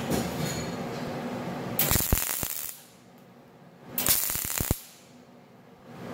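Two short bursts of MIG welding, each just under a second, a dense crackle that starts and stops sharply, as tack welds go onto the broken bars of a combine's keystock grate.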